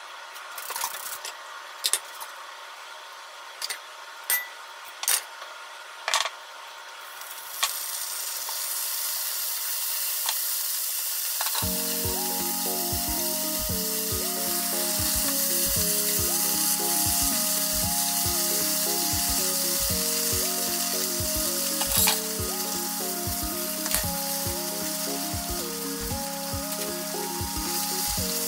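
A few sharp knocks of chopsticks on a frying pan. About a third of the way in, a steady sizzle begins as prosciutto and cabbage, and then noodles, stir-fry in the non-stick pan. Light background music comes in shortly after the sizzle starts.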